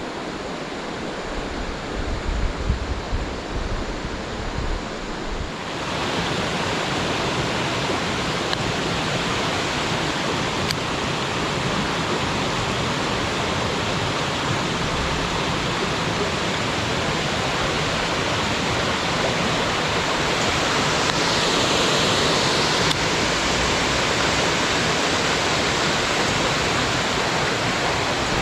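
Rushing water of a waterfall, a steady loud hiss that grows louder and brighter about six seconds in. Before that there is an uneven low rumble under it.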